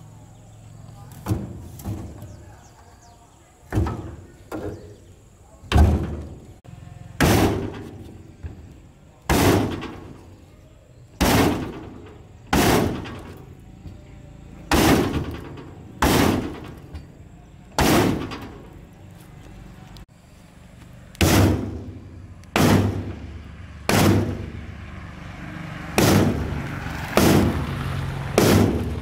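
Repeated heavy blows of a metal tool on the rusted steel cargo bed of an old Daewoo truck being knocked apart for restoration. There are about twenty sharp metallic impacts, each with a short ring, roughly one every second or two, with a pause of a few seconds about two-thirds of the way through.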